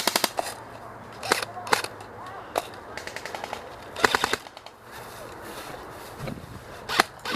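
Airsoft guns firing in rapid short bursts, with single shots in between.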